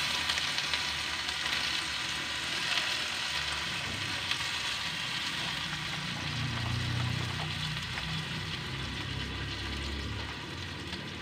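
Pechay (bok choy) and sardines sizzling steadily in a wok over a wood fire, a little water having just been poured in.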